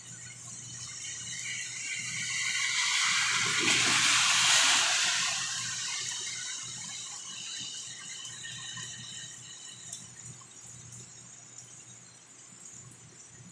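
Rushing hiss of heavy rain and water that swells to a peak about four seconds in, then fades over the next few seconds, over a steady low hum.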